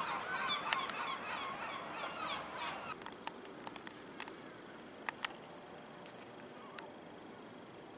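Several birds calling over one another in wavering calls, fading after about three seconds. Scattered sharp clicks follow.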